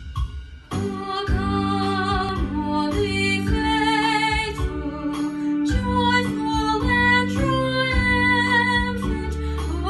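A girl singing a Christmas carol solo with instrumental accompaniment; her voice comes in about a second in, with a light vibrato on held notes.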